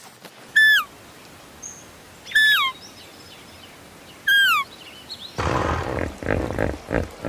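Three short animal calls about two seconds apart, each a clear note falling in pitch, followed about five seconds in by a louder run of rough, pitched animal calls.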